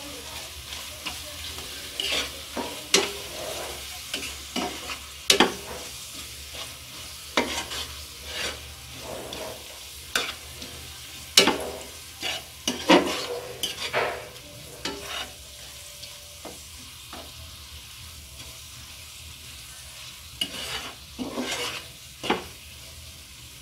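Steel spatula scraping and stirring onion and spice paste around a non-stick wok, over a steady sizzle of frying oil. The scrapes come irregularly and thickly through the first half, ease off into sizzling alone past the middle, then return briefly near the end.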